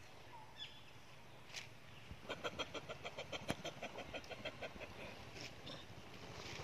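An animal calling in a quick, even run of short pitched notes, about six a second, for some two and a half seconds starting about two seconds in, like clucking.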